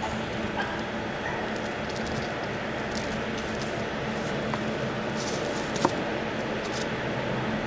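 A steady low hum with a few brief, soft hissing rustles and one sharp click about six seconds in, as a skewered ayu fish is handled over trays of salt.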